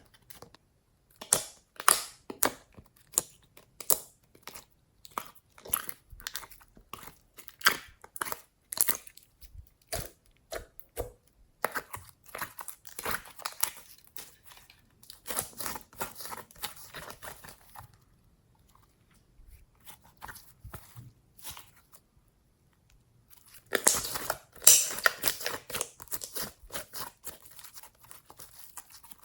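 Slime being squeezed and worked by hand, making a run of sharp crackling pops and clicks. It goes quiet for a few seconds about two-thirds of the way through, then comes back as a loud burst of dense crackling.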